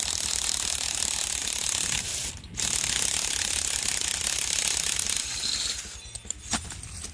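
Impact gun hammering as it backs a lag bolt out of the ground, in two runs with a short break about two and a half seconds in. It stops about six seconds in, leaving a few light clicks.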